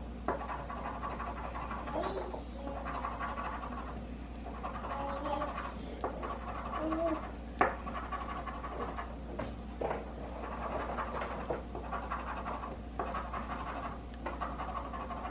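Scratch-off lottery ticket being scratched: steady rough scraping strokes as the coating is rubbed off the play area, with a couple of sharp clicks about midway.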